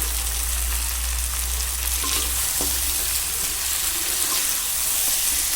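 Skin-on broiler chicken leg pieces sizzling steadily in hot oil in a pan, the fat rendering out of the skin, with one light click about halfway through.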